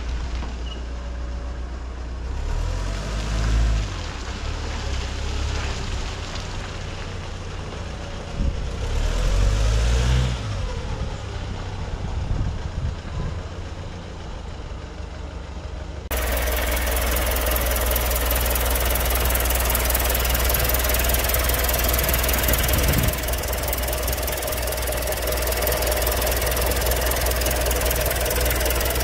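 Nissan Cabstar truck's diesel engine running as the truck drives and turns, louder twice in the first half. About halfway through the sound cuts to the engine bay, the diesel idling steadily close up.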